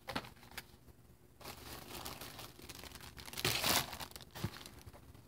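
Bubble wrap crinkling and rustling as it is handled inside a cardboard box, with a couple of light knocks in the first second. The rustling starts about a second and a half in and is loudest about three and a half seconds in.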